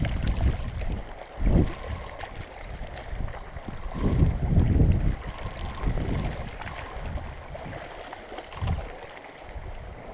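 Wind buffeting the microphone in irregular low gusts, a rumble that swells and fades every second or two over a steady hiss.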